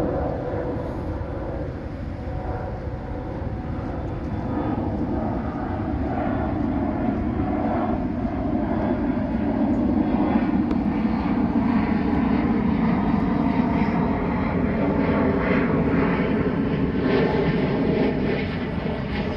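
An airplane passing overhead: a steady engine rumble that builds over the first few seconds and stays loud through the rest.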